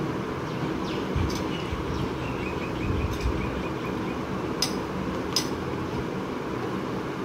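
Steady background hum and rumble, with a run of faint high chirps about two seconds in and two sharp clicks about four and a half and five and a half seconds in.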